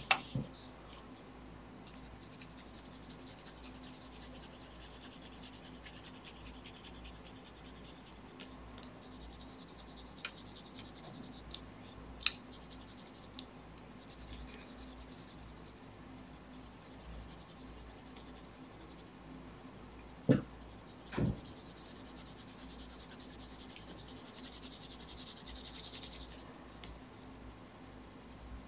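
Colored pencil shading on a paper cover: a soft, scratchy hiss of the pencil strokes that comes and goes. A few sharp clicks stand out, one about halfway through and two close together later on.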